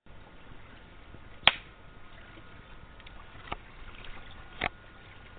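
Faint steady background noise broken by a sharp, loud click about a second and a half in, followed by two softer clicks later on.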